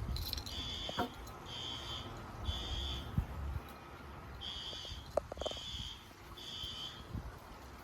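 Fire alarm sounding the temporal-three evacuation pattern: three high beeps about a second apart, a pause, then three more. It was set off by a smoke detector being tested. A few knocks sound under it.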